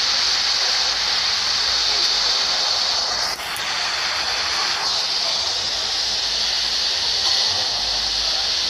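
Steady, even hiss of noise, strongest in the treble, with a brief dip about three seconds in.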